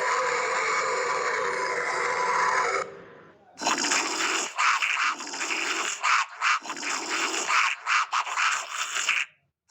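Horror sound effects: a steady, dense eerie texture cuts off about three seconds in. After a short pause, a choppy sound of irregular rasping bursts follows and breaks off just before the end.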